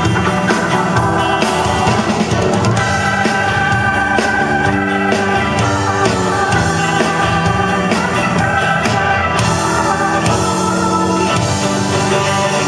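Rock band playing, with guitars and drums.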